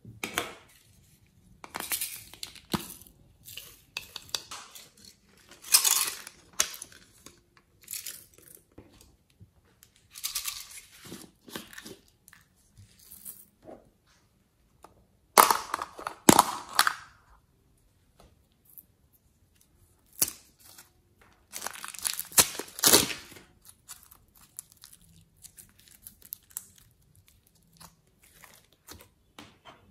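Hands handling small plastic containers: crinkly scraping, clicks and peeling in irregular bursts a few seconds apart.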